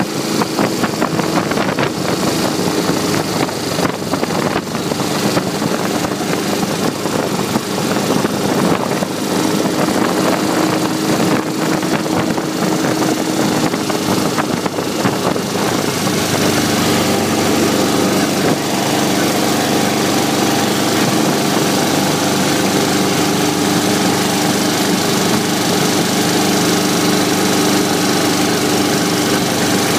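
Dnepr 650 sidecar motorcycle's flat-twin engine running steadily under way, heard from the sidecar, mixed with wind and road noise. About halfway through the wind hiss grows stronger and the engine note steadies.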